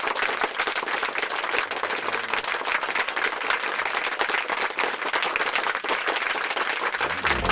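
Crowd applause, many hands clapping in a dense, steady patter. Music begins right at the end.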